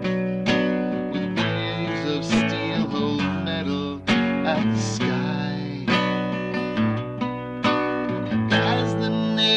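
Acoustic guitar strummed, chords ringing with a steady pulse of about two strums a second between sung lines.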